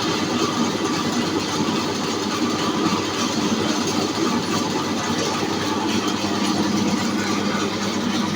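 Electric horizontal bandsaw sawmill running steadily, its band blade sawing through a log.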